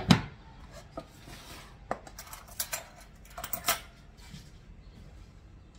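Kitchen utensils and bowls being handled on a counter: a heavy knock right at the start, then scattered light clinks and clatters of metal utensils against bowls, busiest between about two and four seconds in.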